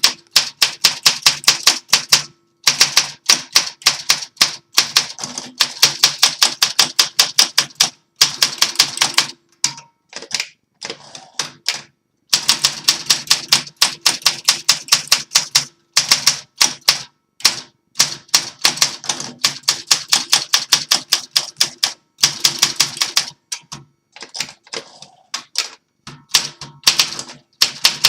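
A 1965 Olympia SM8 manual portable typewriter being typed on: quick, even runs of crisp key strikes, several a second, broken by short pauses. This is a refurbished machine being test-typed in working order.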